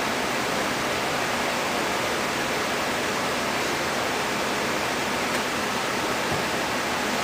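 Steady, even hiss of background room noise with no distinct events.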